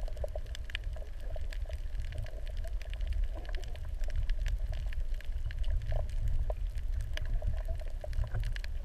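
Underwater ambience picked up by a camera microphone sealed in its waterproof housing below the surface: a steady muffled low rumble of moving water with many small scattered clicks and crackles.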